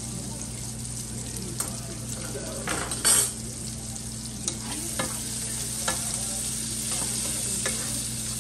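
Bacon sizzling steadily in hot oil in a nonstick skillet, with a few light taps and scrapes of a wooden spatula. There is a short, louder burst of noise about three seconds in.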